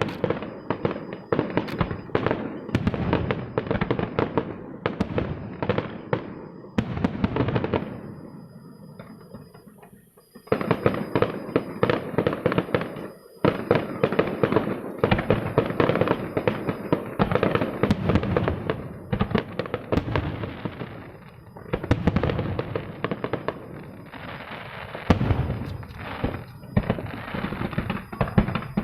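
Fireworks display: dense, rapid volleys of bursts and crackling shells, thinning to a lull about a third of the way in before a sudden new barrage.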